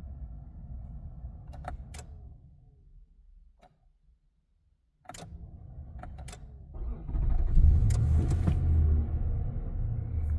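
A 2019 Nissan Titan that will not crank: a low electrical hum with sharp clicks as the start button is pressed. The hum dies away for about two seconds, comes back with more clicks, and then a much louder low rumble sets in about two-thirds of the way through and keeps going.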